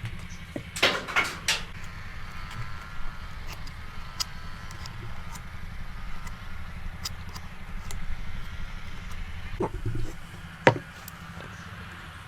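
Scattered sharp knocks and taps of hand woodworking, a quick cluster about a second in and two louder single knocks near the end, over a steady low hum.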